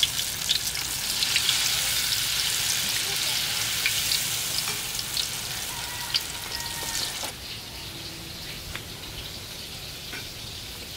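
Battered banana slices frying in a pan of hot oil, a steady sizzle full of small crackles. The sizzle turns quieter suddenly about seven seconds in.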